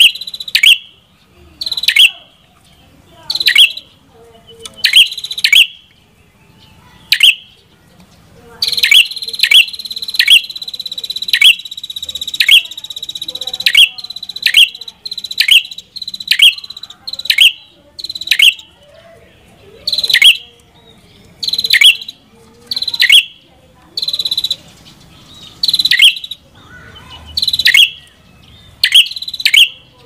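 Red-headed prenjak (a tailorbird) singing: a string of loud, sharp, high notes that slur downward, about one a second. For about four seconds in the first half, a steady high trill runs beneath the notes.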